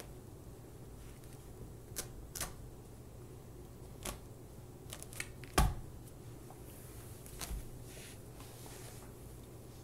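Dog gnawing and tearing at a cotton rope toy: a handful of sharp clicks and snaps, the loudest a little past halfway, over a low steady hum.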